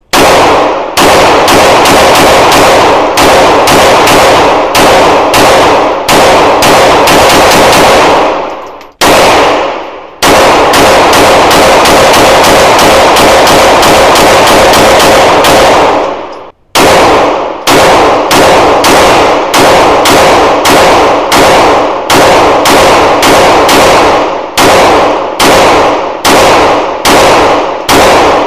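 Pistol fired in rapid strings, shot after shot, about two to three a second, each crack ringing off the walls of an indoor range. The firing breaks off briefly twice, about 9 and 16 seconds in.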